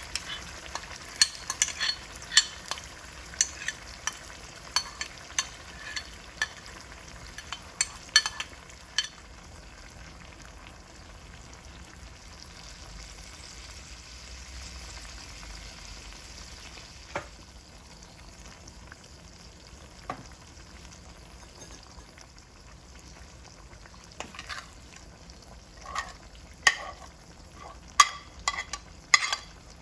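Eggplant masala sizzling as it fries in a pan, with a spoon stirring and clicking against the pan. The stirring clicks come thick in the first third, ease off into a steady sizzle, and pick up again near the end.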